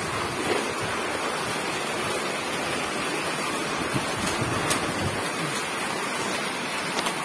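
Steady rushing noise, with a few faint clicks.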